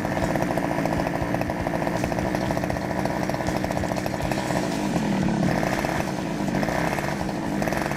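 Small two-stroke engine of a Go-ped GSR25 petrol scooter running steadily, just revived after ten years unused, with a few slight rises in speed in the second half.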